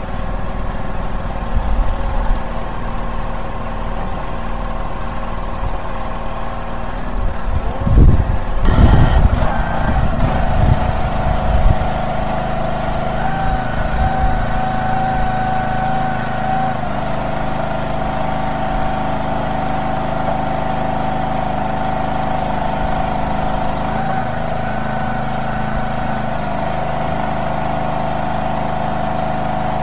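Engine running steadily during a boat haul-out. About eight seconds in there is a burst of low thumps and rumbles, and after that a steady whine stays on over the engine.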